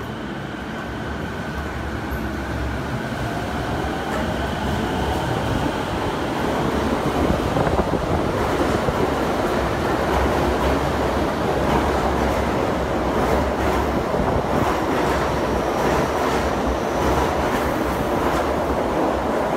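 Electric subway train approaching through the tunnel and running through the underground station at speed. The rumble builds steadily over the first several seconds, then stays loud, with a rapid run of wheel clacks over rail joints as the cars go by.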